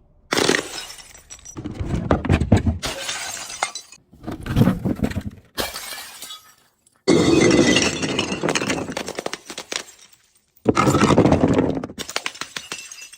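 Glass bottles breaking and being crushed, crunching and shattering in about six separate bursts that start and stop suddenly.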